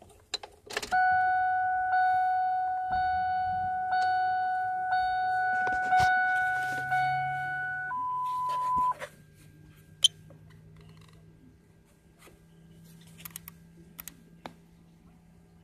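Ford New Generation Star Tester's beeper sounding a steady electronic tone for about seven seconds, with a slight break about every second, then switching to a single higher beep for about a second and stopping. A few faint clicks of its keys follow.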